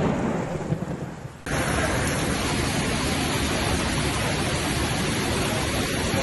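A thunder rumble dying away over rain, then, after an abrupt cut about a second and a half in, the steady hiss of a heavy downpour.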